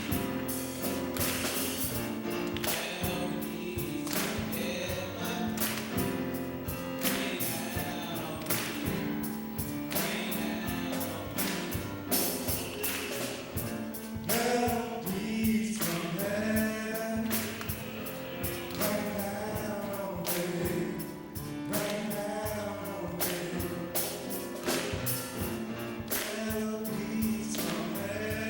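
Gospel music: a choir singing over a steady drum beat.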